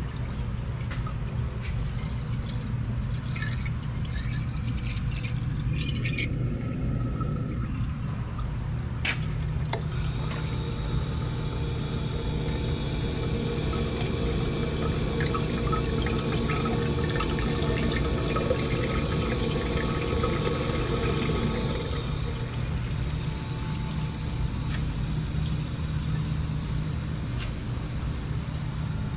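Drill press coolant pump running normally, coolant splashing and pouring into the tank's screened return over a steady low motor hum. The splashing is loudest through the middle.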